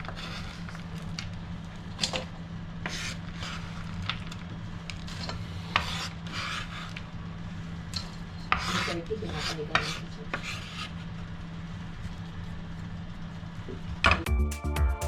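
Kitchen utensil scraping and rubbing in short, irregular strokes over a steady low hum. Music starts about a second before the end.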